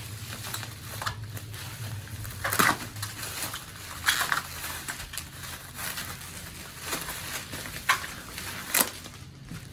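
Earbud packaging being handled and opened: irregular crackles, rustles and scrapes of paper and cardboard, with a few sharper cracks about 2.5 s, 4 s, 8 s and 9 s in.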